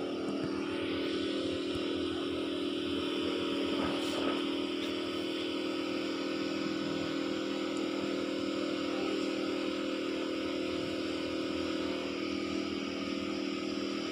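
A steady, unchanging motor hum made of several held tones.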